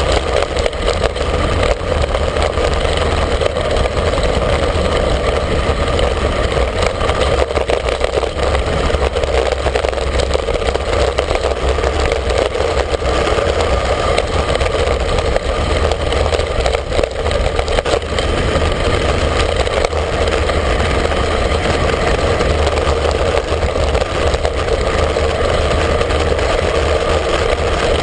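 Loud, steady wind rush and low rumble buffeting the microphone of a handlebar-mounted camera on a road bike descending fast.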